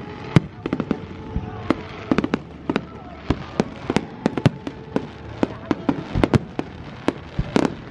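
Aerial fireworks display: a rapid, irregular string of bangs and cracks, several a second.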